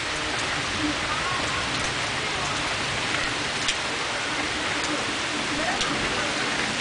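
Steady storm rain falling, an even hiss with a few sharp drop ticks scattered through it.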